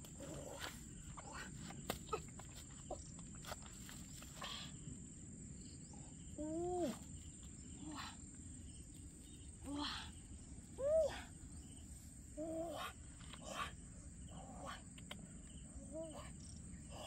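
Rustling and knocking from a stick and wicker basket being handled in grass while a snake is caught, under a steady high insect drone. About five short voiced calls rise and fall in pitch, spread through the middle and later part.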